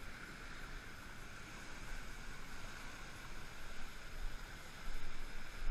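Wind rumbling on the microphone over the steady wash of shallow surf, getting louder about four seconds in.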